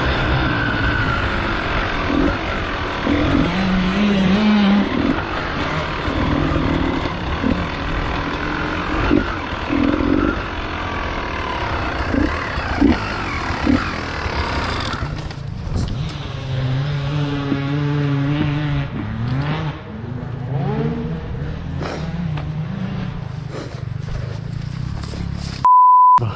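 Beta enduro motorcycle engine running and revving up and down while riding, over a steady rushing noise. Near the end a loud steady beep tone cuts in briefly.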